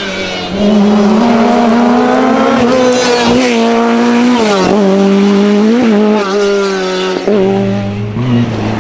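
Lancia 037 rally car's supercharged four-cylinder engine at high revs under full throttle, the pitch held mostly steady. Twice in the second half the revs drop sharply and pick up again. Near the end a deeper engine note from another car takes over.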